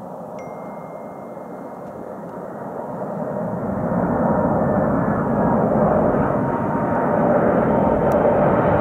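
Boeing 747-400 freighter's four jet engines as the jumbo comes in to land, a rushing jet noise with a faint steady whine that grows steadily louder over the first four seconds as the aircraft nears, then stays loud.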